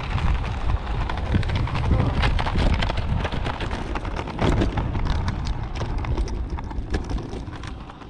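Low rumble of wind on the microphone of a moving body-worn camera, with many irregular clicks and knocks.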